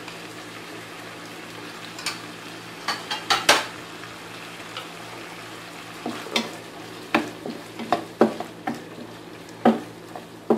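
Chicken pieces sizzling steadily in a frying pan while pizza sauce is stirred in, with utensils knocking and scraping against the pan: a few knocks around two to three seconds in, then a run of them from about six seconds on.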